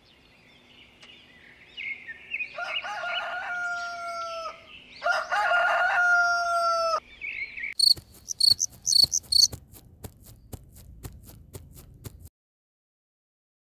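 A rooster crowing twice, each crow about two seconds long, with small birds chirping around it. A burst of rapid high chirping and a run of sharp clicks follow, then the sound cuts off about a second before the end.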